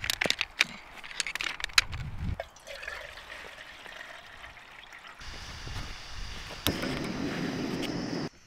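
Clicks and clatter of a remote-canister gas stove's metal legs being unfolded. Then water is poured from a bottle into a metal pot on the stove, and near the end there is a steady hiss as the gas is turned on at the isobutane canister.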